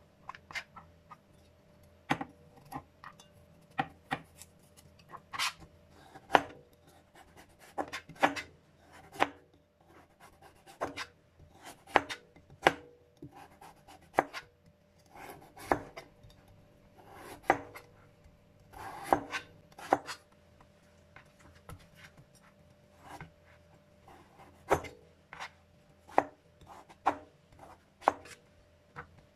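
Large kitchen knife chopping squash into chunks on a plastic cutting board: irregular sharp knocks of the blade striking the board, about one or two a second.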